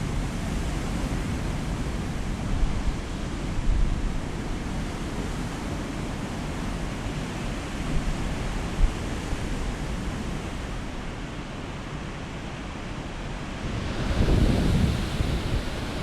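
Heavy winter storm surf breaking, a steady rush of waves with wind on the microphone. A louder wave surges in near the end.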